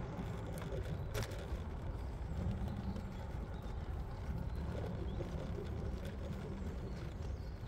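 Wind buffeting the microphone and road rumble while riding an electric scooter along a street, with a short click about a second in.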